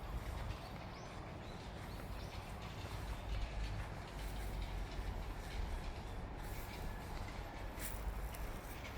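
Outdoor ambience with a steady low rumble underneath, a few faint bird chirps early on, and footsteps on a path near the end.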